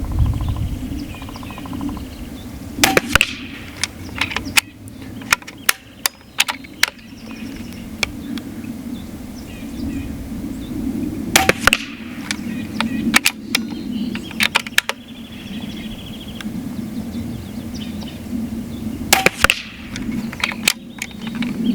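Benjamin Marauder .22 PCP air pistol firing three shots, each a sharp crack, about eight seconds apart. Each shot is followed by a few smaller metallic clicks as the bolt is worked.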